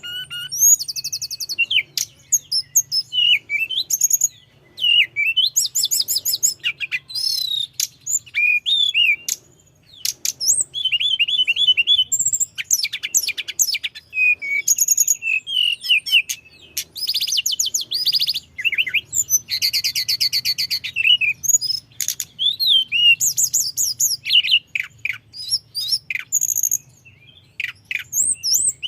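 A tledekan gunung songbird singing a long, fast, varied song: rapid high whistles, chips and buzzy trills run together, broken only by brief pauses, with a fast rattling trill about twenty seconds in.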